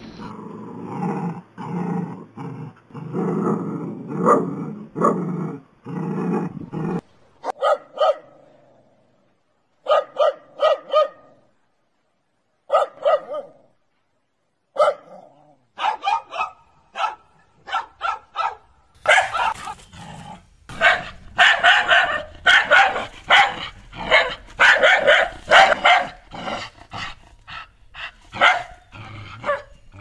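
Dogs barking and growling in a run of separate clips: rough growling mixed with barks for the first several seconds, then single barks separated by short silences, then rapid, dense barking from about two-thirds of the way in.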